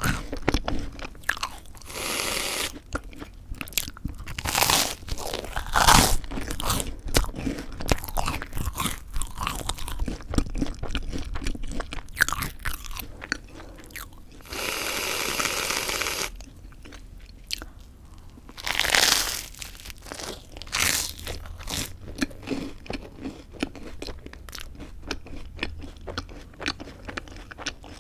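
Close-up crunching and chewing of crisp toasted white bread, bite after bite. Midway there is a steady hiss of about a second and a half, as from an aerosol can of whipped cream spraying onto the toast.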